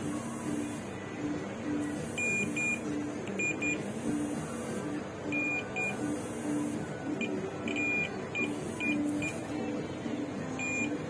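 Digital multimeter's buzzer giving short, high beeps at irregular moments, some in quick pairs, as its probes touch test points on a phone motherboard, over background music.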